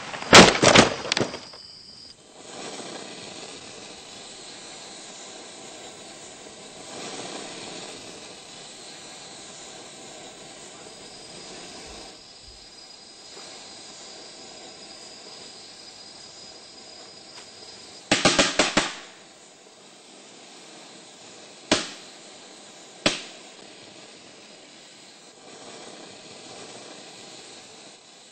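A large tree branch breaking and crashing down: a burst of loud sharp cracks at the start, another cluster of cracks about 18 seconds in, then two single sharp cracks, over a steady hiss.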